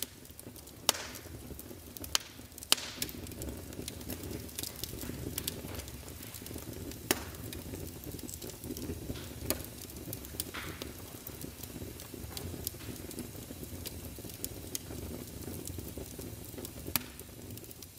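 Faint, steady low crackling noise with scattered sharp clicks a few seconds apart.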